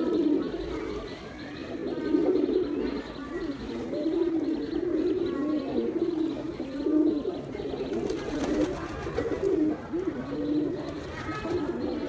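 Domestic pigeons cooing, many low coos overlapping in a near-continuous run, as a male struts and displays.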